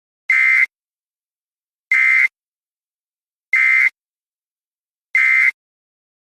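Emergency Alert System end-of-message data tones: four identical short, high-pitched buzzy bursts of SAME digital code, each about a third of a second long and about one and a half seconds apart, signalling the end of the alert.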